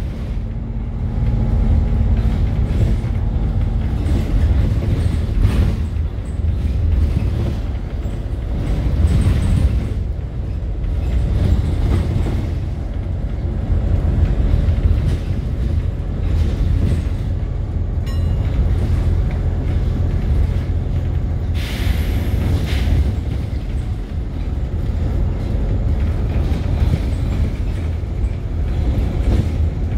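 Steady low engine and road rumble heard from inside a moving bus, with a brief hiss about two-thirds of the way through.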